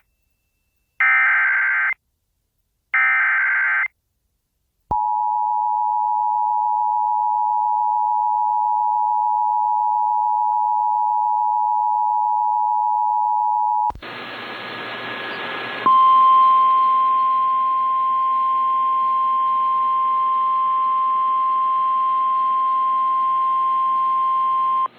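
Emergency Alert System alert tones. Two more bursts of SAME header data, each a rasping digital warble about a second long, come a second apart. Then the two-tone EAS attention signal holds steady for about nine seconds. After a couple of seconds of radio static comes a single steady 1050 Hz NOAA Weather Radio warning alarm tone over a background of hiss and hum.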